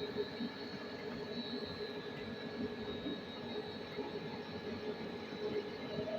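PVC extrusion machinery running steadily: a constant drone with a few fixed hums and a thin high whine.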